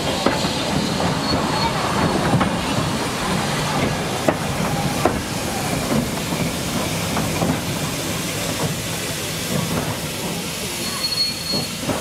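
Slow-moving train of wooden goods brake vans and a steam tank locomotive passing close by. Steady rolling noise with irregular clicks and knocks from the wheels and couplings.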